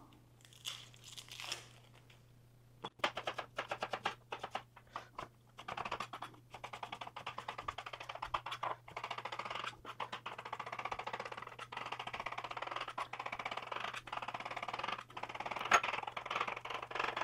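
Chef's knife chopping an onion on a plastic cutting board. A few separate cuts start about three seconds in, then settle into a fast, steady run of chops.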